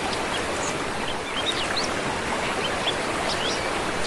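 Steady rush of a small waterfall and stream, with many short bird chirps and twitters scattered over it.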